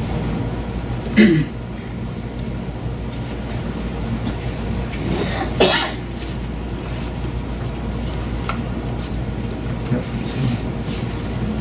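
A person coughing twice, once about a second in and again about halfway through, over a steady low hum.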